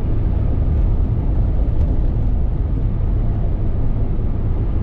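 Steady cabin noise of a 2018 Jeep JL Rubicon on the road: a low, even hum of BFGoodrich All-Terrain 285/70R17 tires, the engine and the wind, with no whine or roar standing out. A pretty quiet ride for these tires.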